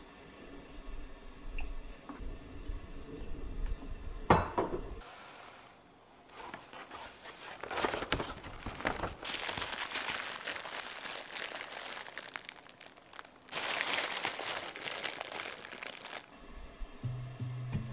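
Clear plastic bags crinkling and rustling in a cardboard box as they are handled, in two long spells. Before that come quieter stovetop kitchen sounds, with one sharp clack about four seconds in.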